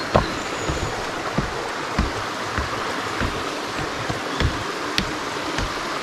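A stream running over stones, a steady rushing, with footsteps thudding along the path about every half second.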